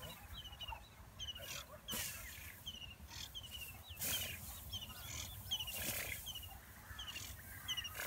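Quail calling: short, high chirped phrases of a few quick notes, repeated about every half second. Brief bursts of noise come and go underneath.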